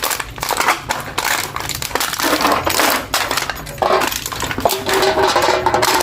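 Aluminium beer can being crushed, its thin metal crinkling and crackling without a break, with a short squeaky creak of bending metal about five seconds in.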